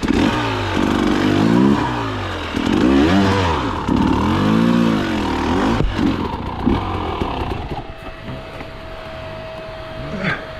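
Two-stroke KTM dirt bike engine revving up and down in repeated throttle bursts for about six seconds, then running quieter at lower revs.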